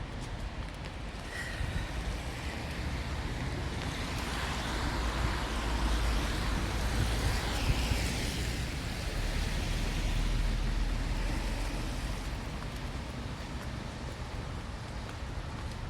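A vehicle passing on a wet street: tyre hiss swells over several seconds, peaks midway and fades away, over a low rumble.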